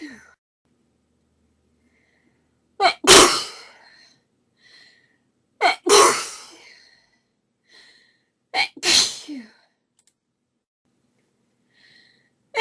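A woman sneezing three times in a sneezing fit, about three seconds apart, each a short sharp catch followed at once by a full, loud sneeze that trails off. Another sneeze begins right at the end.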